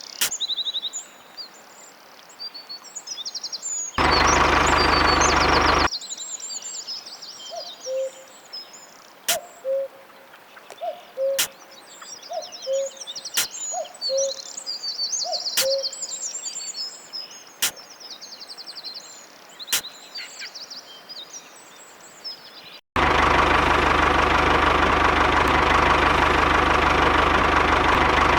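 Songbirds chirping and twittering throughout, with a short low note about every two seconds in the middle stretch. A loud steady whirring noise cuts in abruptly for about two seconds early on and again for the last five seconds.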